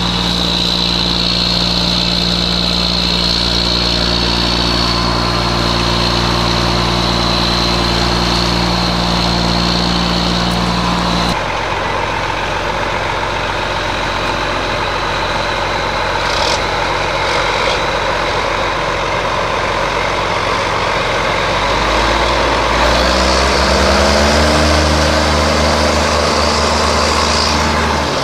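Large John Deere four-wheel-drive tractor's diesel engine running steadily with a high whine. About eleven seconds in, the sound changes abruptly. From about twenty-two seconds in, the engine revs up and its pitch rises over a few seconds.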